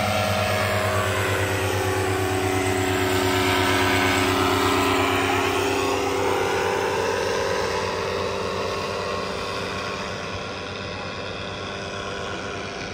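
Powered paraglider trike's engine and propeller buzzing as it flies low past, loudest about four seconds in. Its pitch then drops and the buzz fades as it flies away.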